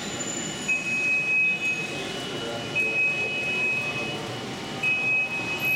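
G-scale model train running on the layout amid steady exhibit-hall noise, while a high electronic tone sounds for about a second roughly every two seconds.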